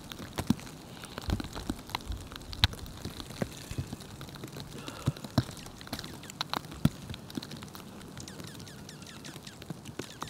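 Irregular light taps and clicks, several a second and unevenly spaced, with a few faint high bird chirps.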